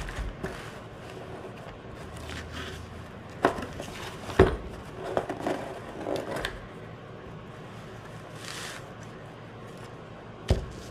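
A cardboard box and plastic-wrapped parts being handled and unpacked on a workbench. There are three sharp knocks, two close together a few seconds in and one near the end, with scraping and rustling of packaging between.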